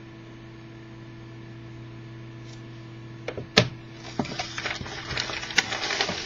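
Trading-card box and its packaging being handled and opened: a few sharp clicks and snaps about three seconds in, then crinkling and rustling to the end, over a steady electrical hum.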